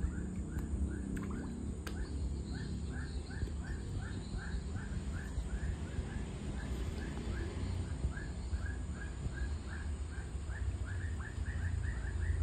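An animal calling in a fast, even series of short rising cheeps, about three a second, over a low steady rumble.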